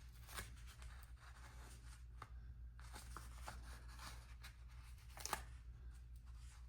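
Faint rustling and light ticks of paper being handled over a planner, with two sharper clicks, one about half a second in and one about five seconds in, over a steady low hum.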